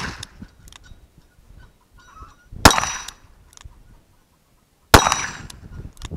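Two .44 Special revolver shots about two seconds apart, each followed by a short metallic ringing tail.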